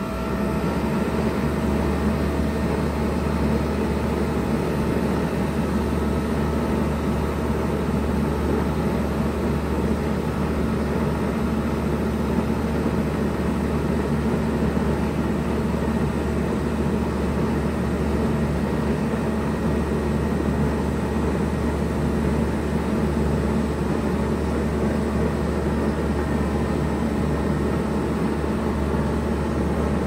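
A 2007 Bard 3-ton wall-mounted heat pump running steadily in heat mode: a low compressor hum under the even rush of its fan.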